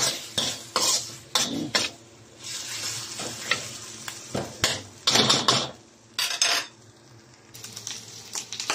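Metal spoon scraping and stirring pieces of pork fat around a wok, the strokes clattering on the pan over the sizzle of frying as the fat renders out and the pieces crisp. The stirring strokes come in clusters, with a quieter stretch of plain sizzling about six seconds in.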